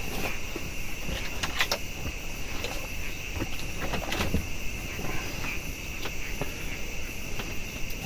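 Steady high-pitched chorus of night insects such as crickets, with a few scattered knocks and rustles.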